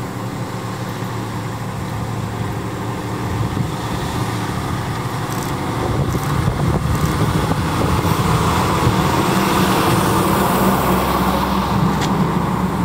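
Fire engine's diesel motor running as the truck drives past at low speed, its engine note and tyre noise growing louder as it comes close, then easing as it moves away; no siren.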